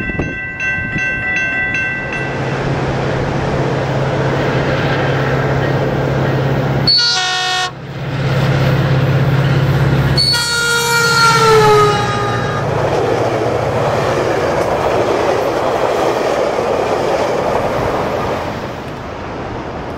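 Diesel train horns blowing: a steady horn chord at the start, a short blast in the middle, then a Metrolink locomotive's horn dropping in pitch as it passes close by. The rumble of the passing train follows and fades near the end.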